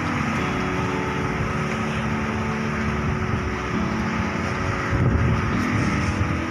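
Wind buffeting the microphone in a low rumble, with a stronger gust about five seconds in, under soft background music of held chords.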